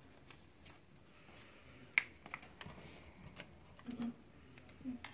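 Light clicks and taps of a plastic acetate sheet and paper being handled and slid on a worktable, with the sharpest click about two seconds in.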